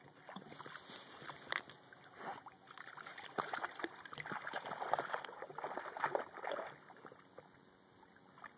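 A French bulldog wading through a shallow muddy creek, water sloshing and splashing around its legs in many quick strokes. The splashing is heaviest in the middle and dies down near the end.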